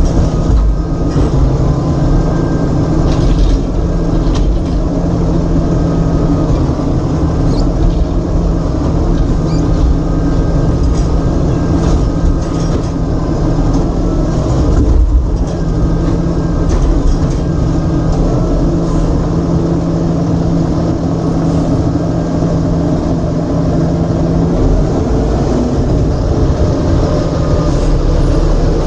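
Automated side-loader garbage truck's engine running steadily with a constant hum, and a few faint knocks over it.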